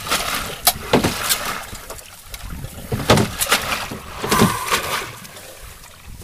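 Sea water sloshing and splashing at the side of a small boat, with a few sharp splashes about a second in, around three seconds and again a little later.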